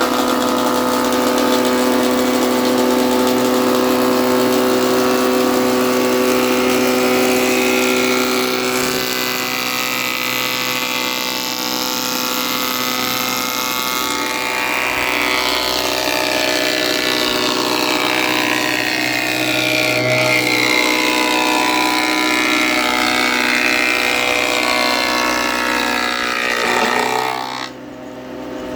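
Electric power tool motor running continuously with a steady hum, its pitch sliding up and down in the second half as the load changes, and a brief drop near the end.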